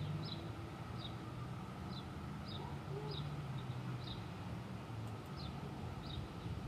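A small bird chirping, short high chirps repeated about once or twice a second, over a low steady rumble.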